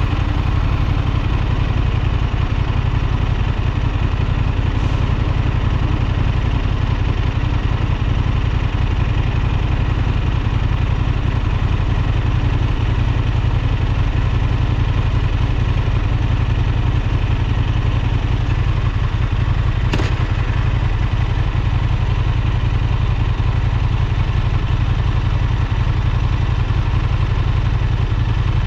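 Honda Transalp XL750's parallel-twin engine idling steadily, with no revving. A single short click about twenty seconds in.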